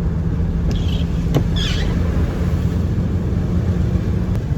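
Steady low rumble of a car driving along the road, heard from inside the vehicle, with a sharp click and a few brief high squeaks about a second and a half in.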